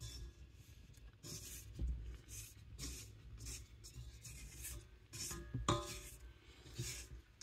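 Silicone spatula scraping bread dough off the sides of a stainless steel stand-mixer bowl: a run of short scratchy rubbing strokes, about two a second, over a low steady hum.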